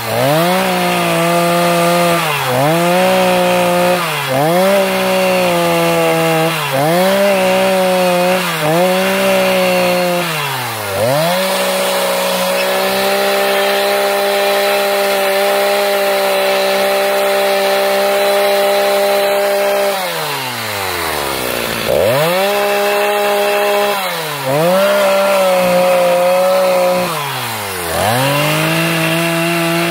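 Stihl Farm Boss two-stroke chainsaw revving hard over and over as it carves wood, the engine dropping back between cuts every second or two. Midway it holds a steady high speed for several seconds, then falls almost to idle before revving up again three more times.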